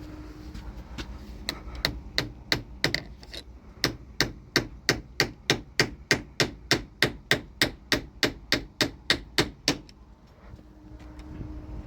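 A hammer striking repeatedly in a quick, even rhythm of about four blows a second. It begins about a second in, pauses briefly, then keeps going until it stops near the ten-second mark.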